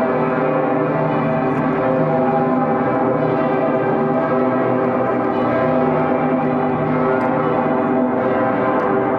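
The St. Peter's Bell (Dicker Pitter) of Cologne Cathedral, the world's largest free-swinging bell, ringing: a steady, dense ringing with many overtones that never dies away between swings.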